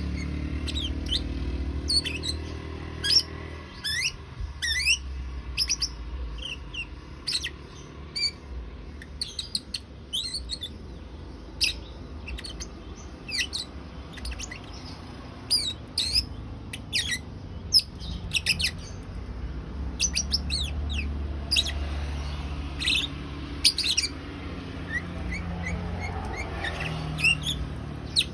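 Lovebird twittering in short, sharp, high chirps that come irregularly and often in quick clusters, over a steady low hum.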